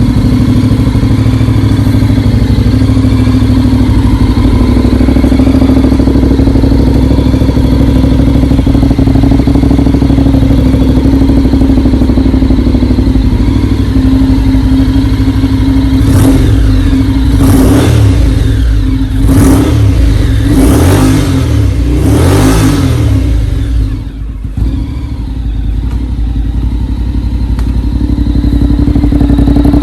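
Honda X-ADV 750's parallel-twin engine through a MIVV slip-on exhaust, idling steadily. It is then blipped about five times in quick succession, and it settles back to idle after a brief dip.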